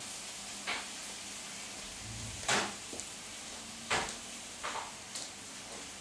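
About half a dozen separate knocks and clunks of kitchen cupboard doors and objects being handled, the loudest about two and a half seconds in.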